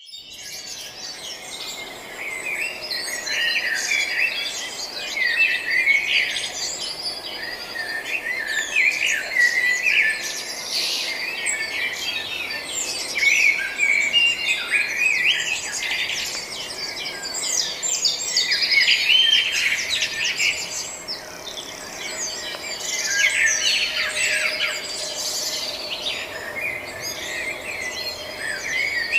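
Many small birds chirping and singing at once, a dense, continuous chorus of overlapping high chirps and trills.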